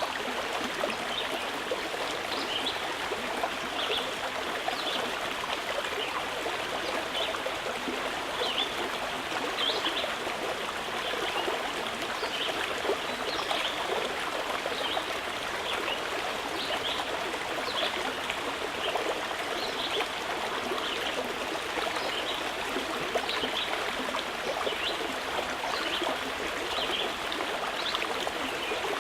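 Running water flowing steadily, with small bright splashes and gurgles scattered through the flow.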